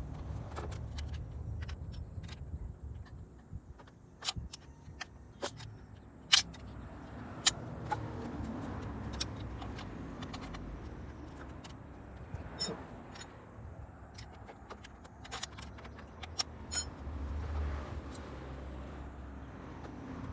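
Metal hand tools and parts clinking and clicking at irregular intervals, a few strikes ringing briefly, over a steady low rumble.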